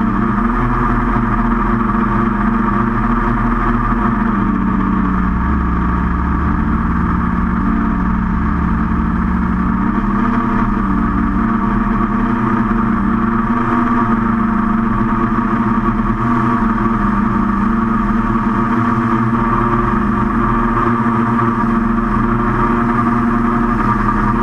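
QAV500 FPV quadcopter's brushless motors and propellers whirring steadily in flight, the pitch shifting slightly with throttle.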